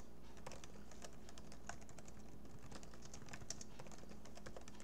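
Typing on a computer keyboard: quiet keystroke clicks at an uneven pace, several a second.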